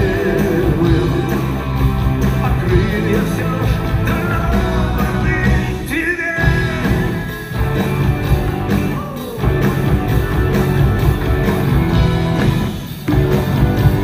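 A rock band playing live, with electric guitars over drums and bass, and the sound dips briefly a few times.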